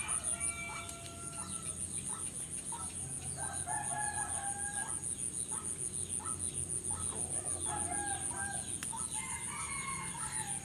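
Roosters crowing several times, each crow a held call of about a second, with chickens clucking, over a steady high-pitched pulsing buzz.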